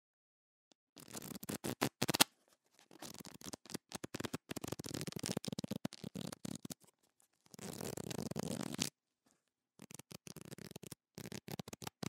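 Pages of a paper book being handled and riffled: several bursts of rapid papery rustling and flicking with short silences between them. The loudest is a sharp snap about two seconds in.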